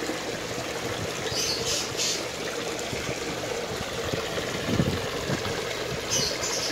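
Steady splashing and trickling of a garden pond's fountain jets pouring into the water, with a couple of brief high-pitched sounds about a second and a half in and near the end.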